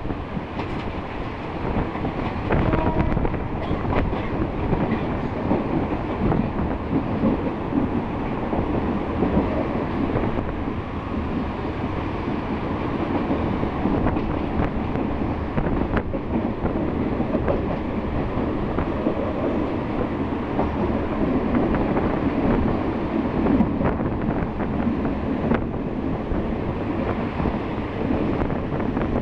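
Diesel-hauled sleeper train running steadily, heard from aboard: a continuous rumble of wheels on the rails with a few faint clicks from rail joints.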